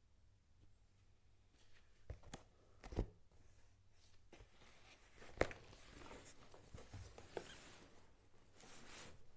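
Faint handling of packaging: a few sharp knocks and clicks, then rustling and scraping as the box is opened.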